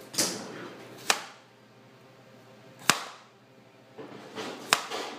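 Kitchen knife cutting cucumber: three sharp knocks of the blade, spaced nearly two seconds apart, with softer scraping in between.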